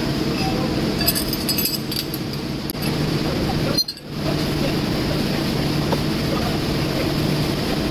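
Steady hum of running workshop machinery, with a cluster of light metallic clinks about a second in as the steel forklift steering axle housing is handled on the milling machine table. The sound drops out briefly about halfway through.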